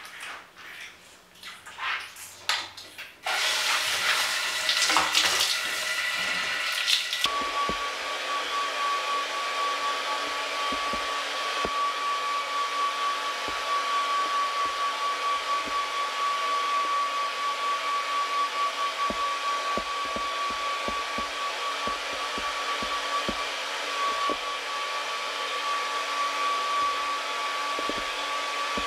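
Shower water splashing and spraying for the first few seconds. About seven seconds in, a hand-held hair dryer switches on and runs steadily with a high whine, blowing on a wet cat's fur.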